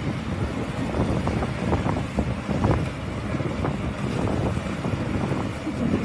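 Wind buffeting the microphone in irregular gusts over the steady engine drone of a rice combine harvester working through the standing crop.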